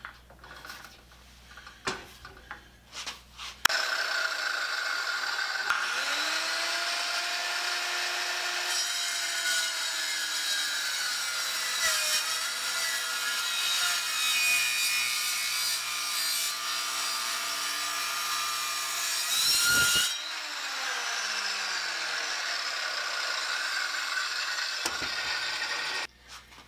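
Sears Craftsman circular saw with a 22-tooth carbide blade, its teeth probably dull, starting up suddenly a few seconds in and cutting through a piece of wood. About three-quarters of the way through, the loud cutting noise drops and the motor note falls away.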